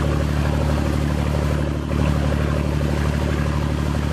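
Boat engine running steadily at speed, under a loud rush of wind and water.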